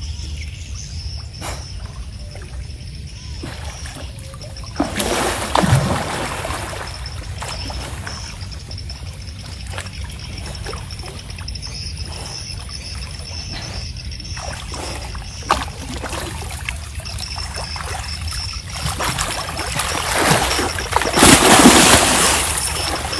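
Muddy pond water splashing and churning as a man wades and thrashes through it chest-deep, over a steady low rumble. There are two loud bouts of splashing, one about five seconds in and a bigger one near the end as he lunges toward the bank.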